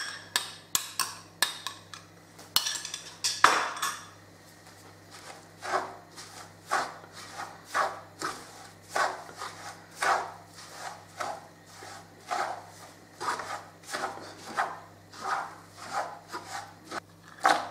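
A slotted spatula scraping and stirring semolina in a stainless steel pan, in repeated strokes about one a second, mixing ghee into the roasted semolina and sugar. There are a few sharper knocks against the pan in the first few seconds, and a steady low hum behind.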